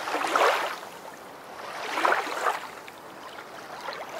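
A rushing, wave-like water sound effect that swells and ebbs, with two big surges about a second apart and a third, smaller one near the end.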